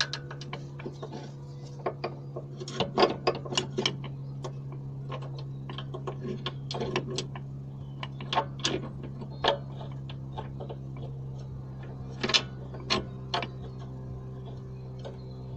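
Hand ratchet clicking in short irregular runs as a bolt on a gearbox mount is turned, over a steady low hum.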